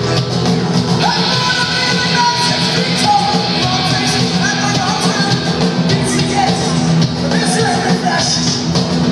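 Punk rock band playing live in a concert hall: electric guitars and drums with sung vocals over them.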